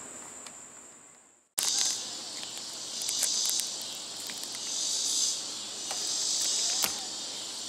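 Insects droning in a high, pulsing chorus that swells and fades every second or two, with a few light clicks and taps. The sound fades out about a second and a half in, goes silent briefly, then cuts back in abruptly.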